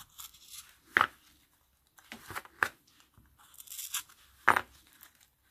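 Stanley knife blade scraping around the edge of a Suzuki GT750 instrument glass, cutting and peeling away the stubborn old rubber seal. Soft scraping and tearing, with a few sharp clicks; the loudest come about a second in and again after four seconds.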